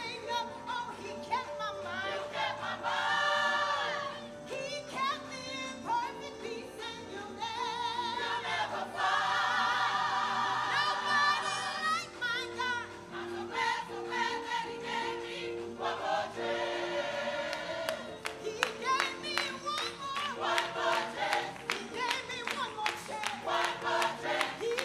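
Gospel choir singing with instrumental backing, voices swelling and falling with vibrato over held low notes. In the second half a steady beat of sharp strikes comes in under the singing.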